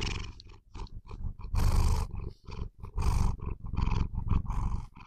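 Domestic tabby cat purring loudly close to the microphone, the purr swelling and fading in uneven pulses.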